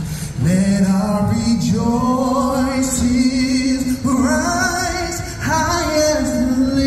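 Amplified group singing from a stage, male and female voices holding long, gliding notes in phrases with brief breaks between them.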